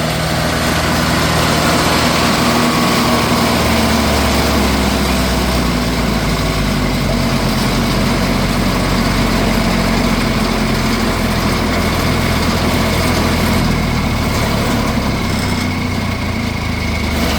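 Diesel engine of a Crary Bearcat CH611DH wood chipper running steadily at low throttle, turned down as the first step of shutting the machine off.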